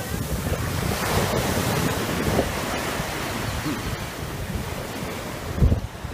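Surf washing up a sand beach in a steady wash of foam, with wind buffeting the microphone.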